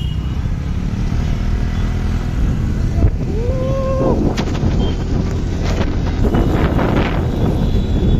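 Wind and road rumble from riding a motorcycle in traffic, with a vehicle horn sounding once for just under a second about three seconds in, and a few knocks over bumps near the middle.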